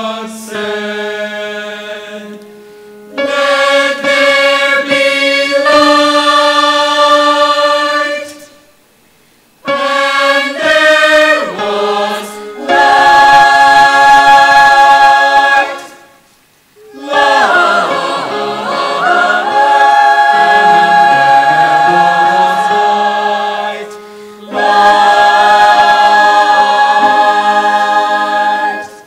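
Choir singing long held chords in sung phrases, with a brief pause about a third of the way in, another just past halfway, and a third near the end.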